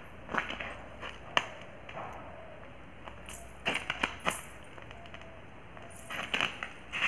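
Wedge sandals stepping and shuffling through a heap of raw rice on a concrete floor, the grains crunching and scattering, while silver anklets with small bells jingle with each movement. The taps come irregularly, sparse in the middle and bunching up near the end.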